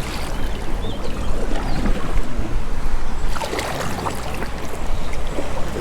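Wind buffeting the microphone mixed with moving water around a kayak: a steady, noisy wash with a low rumble.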